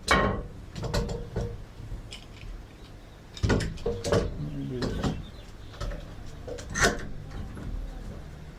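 Scattered knocks and clatter of wooden boards and tools being handled and set in place, with about half a dozen sharp knocks, the loudest near the start and near the end.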